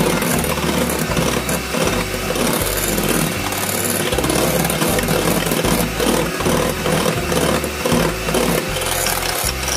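Electric hand mixer running steadily, its twin wire beaters whisking egg and sugar in a ceramic bowl.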